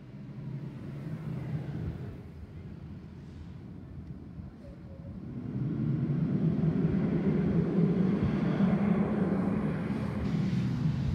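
School bus engine running, growing much louder about five and a half seconds in as a bus pulls out of the lot.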